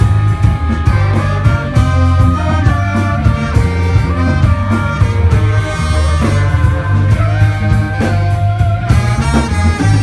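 Live instrumental band playing: a heavy electric bass line and drum kit under a horn section of saxophone and trombone, with electric guitar.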